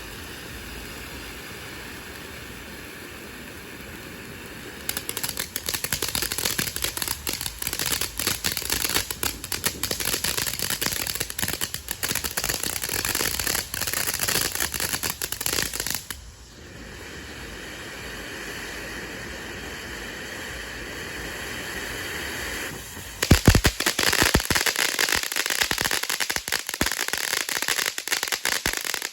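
Consumer ground firework going off: a steady hiss for about five seconds, then dense crackling for about ten seconds, then steady hissing again. About twenty-three seconds in there is a loud bang, and dense crackling follows it.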